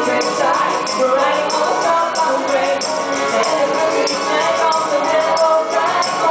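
Live band playing a song, with singing over the instruments and high percussion keeping a steady beat of about two strokes a second.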